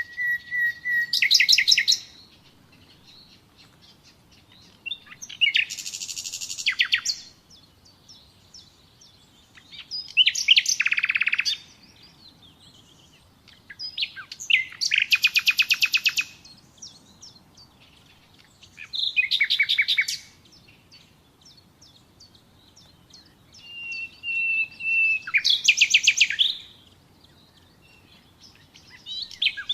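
Nightingale singing: about seven short song phrases a few seconds apart, each a fast run of repeated notes, two of them opening with a single held whistle.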